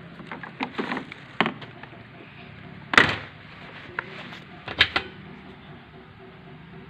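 A scatter of short, sharp knocks and clacks: several in the first second and a half, the loudest about three seconds in, and a close pair near five seconds.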